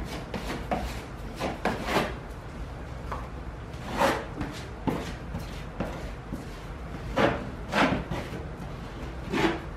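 Small drywall scraper drawn over drywall tape and joint compound on a wall, in a series of short, uneven scraping strokes. The louder strokes come about four seconds in and again near the end.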